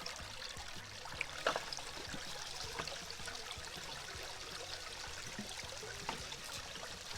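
Creek water pouring and trickling through a gold sluicebox during a test run of dug gravel, with scattered clicks and knocks of small stones; one louder knock about a second and a half in.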